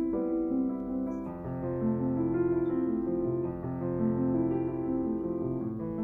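Background piano music: slow, sustained notes over a low bass line.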